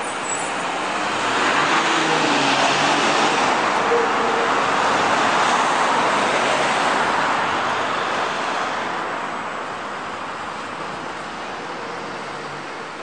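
Road traffic on a city street: a vehicle passes by as a rushing tyre-and-engine noise that swells over the first couple of seconds and fades away after about eight seconds.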